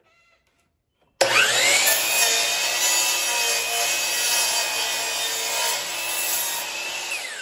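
DeWalt sliding compound miter saw starting about a second in, its motor whine rising quickly to speed, then cutting through a wooden wall stud for about six seconds. Near the end the motor is switched off and the whine falls as the blade spins down.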